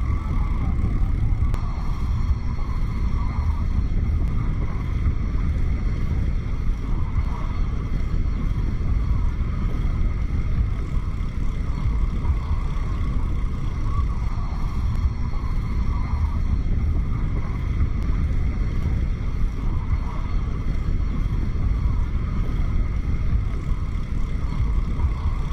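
Steady low rumble of wind buffeting the microphone and tyre noise while riding a bicycle, with a thin steady high tone running underneath.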